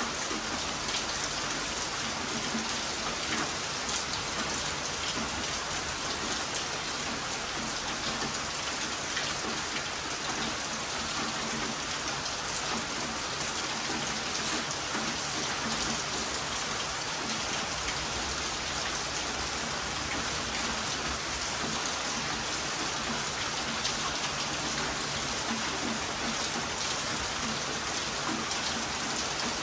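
Heavy rain falling steadily, an even, unbroken hiss of drops.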